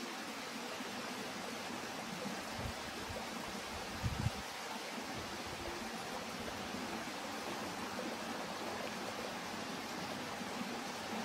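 Steady outdoor ambient hiss, with a brief low thump about four seconds in.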